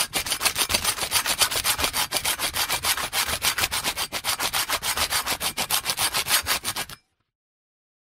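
Sandpaper rubbed rapidly back and forth, about seven strokes a second, in an even scratchy rhythm that stops abruptly about a second before the end.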